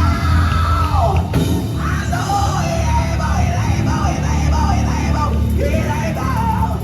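Live gospel band music with a heavy, steady bass. A singer's voice runs up and down over it in bending, drawn-out phrases, with a falling slide about a second in.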